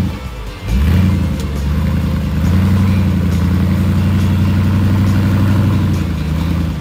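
Toyota Hilux truggy's engine running at steady high revs under load as it crawls over boulders. It drops off briefly about half a second in, picks back up, and eases off near the end.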